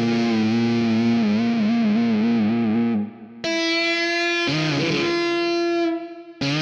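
Music: long, distorted held notes with a wide, even vibrato, broken by two short gaps about three seconds and six seconds in, with a steadier note in between.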